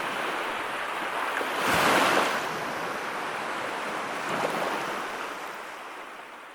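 Sea waves washing in. One wave breaks and swells loudest about two seconds in and a smaller one follows later. The sound then fades out near the end.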